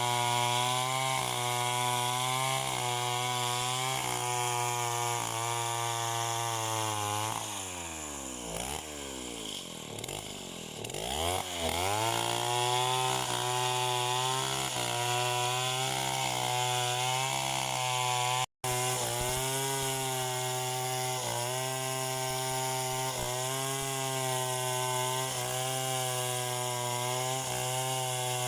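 Two-stroke chainsaw engine running at high revs with a slight rhythmic waver in pitch. About a third of the way through, the throttle is let off and the engine winds down to a low note, then revs back up a few seconds later and runs on at high speed.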